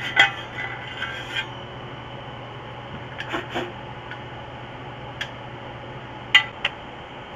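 Metal clinks and scrapes as the 1980 Yamaha SR500's muffler is taken apart, its perforated inner tube sliding out of the muffler shell. A sharp clink just after the start, scraping about a second in, and two more sharp clinks near the end.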